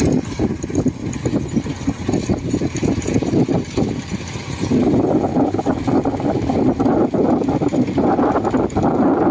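DC 93 rice combine harvester running while cutting rice: a steady engine and machinery drone that grows louder about halfway through as the machine comes closer.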